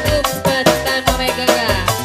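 Live music for a singa depok procession: a steady drum beat about twice a second under a melody that slides up and down in pitch.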